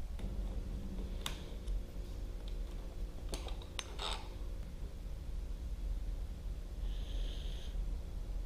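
A few light clicks and taps over a steady low rumble, with a short hiss near the end.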